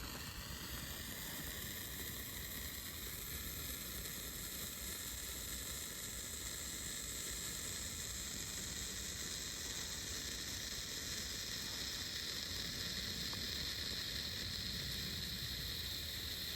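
Weco Funkenzauber category 1 firework burning with a steady, even hiss as it sprays sparks.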